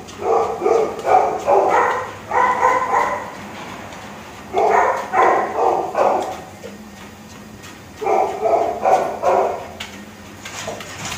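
Akita dog giving short, pitched barking calls in three bouts of a few calls each, with pauses of a second or two between the bouts.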